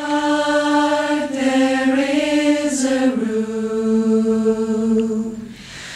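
Mixed-voice a cappella choir singing long held notes without words, the pitch stepping down twice before the sound fades out near the end.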